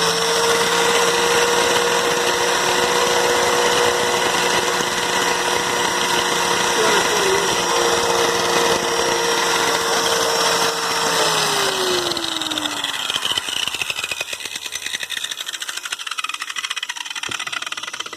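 Electric angle grinder running at full speed with no load, a steady high whine. About 11 seconds in it is switched off and spins down, the whine falling in pitch and fading. A fainter steady hiss continues afterwards.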